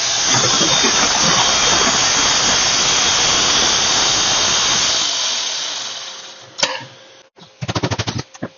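Hardwood floor sanding machine running loud and steady, then winding down about five seconds in. A quick rattle of short strokes follows near the end.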